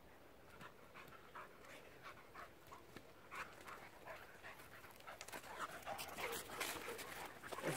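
Dog panting faintly in quick, rhythmic breaths, growing louder and busier in the last few seconds.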